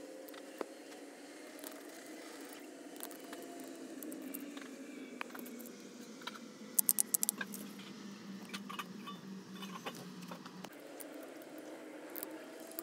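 Small clicks and rattles from handling a plastic modular switch board and its wiring, with a quick run of about six sharp clicks about seven seconds in, over a steady low hum.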